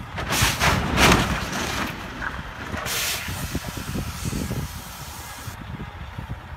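Box truck colliding with a tanker truck on a snowy highway: loud hissing bursts of noise, the loudest about a second in and another about three seconds in, over a steady low rumble of wind on the microphone.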